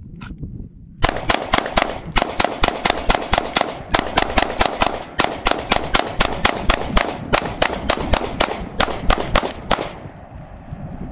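Glock 19 pistol firing Blazer Brass 9mm 115-grain rounds as a mag dump from a 33-round magazine: a rapid string of about thirty shots, three to four a second, starting about a second in and stopping shortly before the end.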